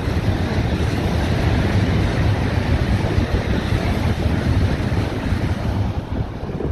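Eurostar high-speed train running past at speed: a steady rush of air and wheels. Heavy wind buffets the microphone throughout.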